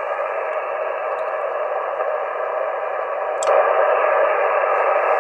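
Steady interference noise from an HF transceiver's speaker, tuned to 7.127 MHz on 40 metres, heard with a QRM Eliminator phase canceller in line. A click about three and a half seconds in as the canceller is switched off, after which the urban interference noise gets louder.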